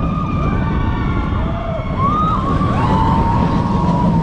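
Onboard sound of a Mack Rides launched steel roller coaster at speed: a steady low rumble of wind on the microphone and the train running on the track, with riders' long high screams gliding up and down over it, one held from a little before halfway to the end.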